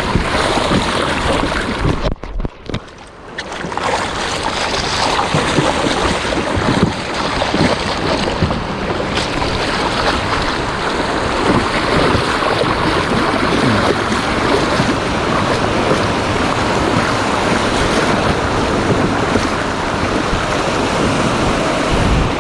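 Sea waves rushing on the shore, with wind buffeting the microphone: a steady loud rushing that drops briefly about two seconds in.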